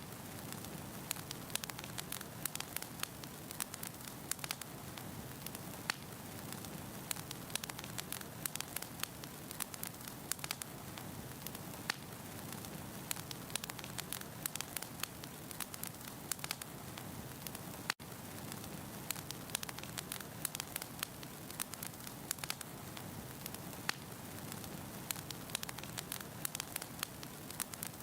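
Firewood burning in a fireplace: steady crackling with many small pops over a soft hiss and low rumble of the flames. A brief dropout comes about two-thirds of the way through.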